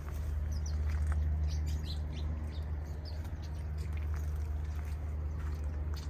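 Small aviary birds giving short, high chirps, scattered through the first half and once more around three seconds in, over a steady low rumble.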